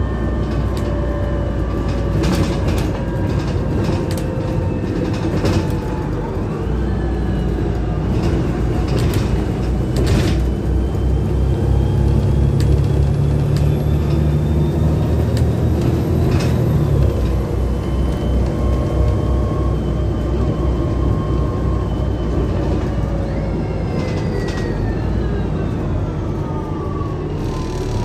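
Inside a Volvo B7TL double-decker bus on the move: the diesel engine runs with a deep rumble that grows louder around the middle, and whining drivetrain tones rise and fall several times as the bus changes speed. Frequent rattles and knocks come from the body and fittings.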